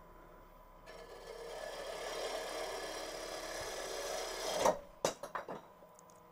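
Bowl gouge cutting the bottom of a small wooden box spinning on a lathe. About four and a half seconds in there is a catch: a sharp bang and a few clattering knocks as the box is torn loose from the chuck, its tenon broken.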